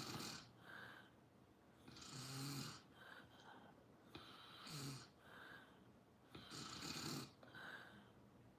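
Someone snoring in slow, even breaths, about one snore every two and a half seconds. Each snore has a low buzz with a hiss above it.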